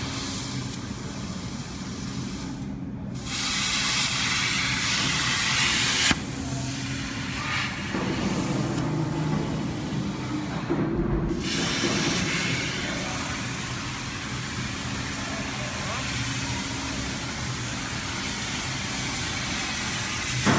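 CNC plasma cutter's torch cutting steel plate: a steady loud hiss of the plasma arc and its air jet. The hiss cuts off briefly twice, about 3 seconds in and again about 11 seconds in, as the arc goes out between cuts.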